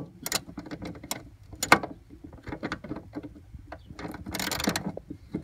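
Small socket wrench with an 8mm socket loosening the nuts of a tail light assembly: irregular metallic clicks and taps, with a denser stretch of clicking and rattling about four seconds in.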